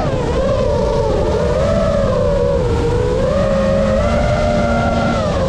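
FPV quadcopter's brushless motors and propellers whining, the pitch sliding up and down with the throttle and dropping near the end, over a steady rush of wind.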